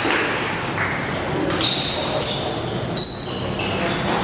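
Table tennis play in a large hall: sharp clicks of the ball and a couple of short, high shoe squeaks on the court floor, over a steady murmur of hall noise.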